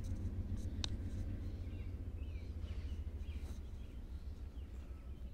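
A few faint bird chirps about two to three and a half seconds in, over a low, uneven outdoor rumble that fades slightly toward the end.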